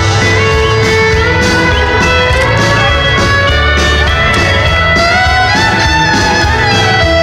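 A live folk-rock band playing, loud and continuous: strummed acoustic guitar and electric bass over a steady drum beat.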